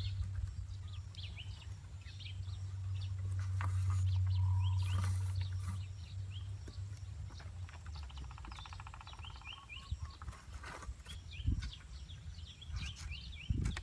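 Birds chirping over and over, with a low steady drone that swells and fades in the first half and a short buzzing trill about eight seconds in. A few scattered knocks.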